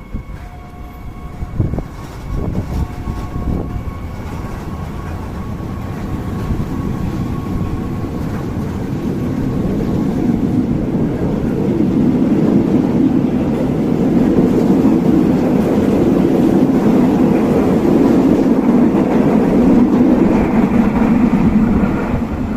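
KRL Yogyakarta–Solo electric commuter train approaching and running past, its rumble building steadily and loudest over the last ten seconds. A steady tone sounds twice in short stretches near the start.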